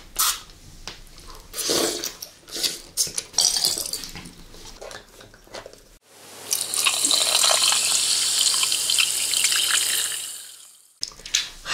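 Close-up wet mouth clicks and smacks of gummy candy being eaten. About six seconds in these cut off abruptly and an intro sound effect takes over: a steady bright hiss over a low hum that swells in and fades away after about four seconds, before mouth clicks return near the end.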